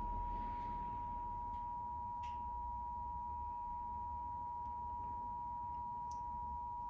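Emergency Alert System attention signal: two steady tones sounded together as one unbroken, even chord, marking the start of a required monthly test.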